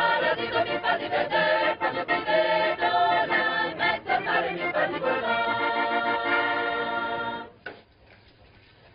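Village choir singing in harmony, ending on a long held chord that cuts off suddenly about seven and a half seconds in.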